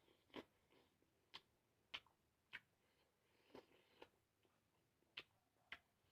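Faint eating sounds: about eight short, wet clicks and smacks from the mouth, at irregular intervals of roughly half a second to a second, as someone chews a mushroom dish.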